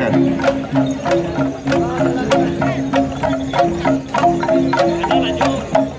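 Dayak traditional music playing: a repeating melody of short, low notes over a steady wooden clack about three times a second, with crowd chatter underneath.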